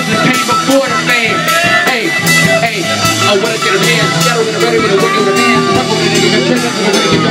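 Live band music: electric guitar playing over a steady drum beat.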